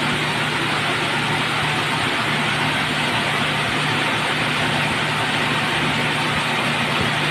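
Shin Nong rice milling machine running steadily: an even mechanical drone with a constant low hum that does not change.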